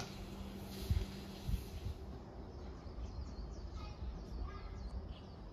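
Birds calling with short, repeated chirps from about three seconds in, over a low outdoor rumble. A couple of thumps come about a second in, and a faint steady hum stops about two seconds in.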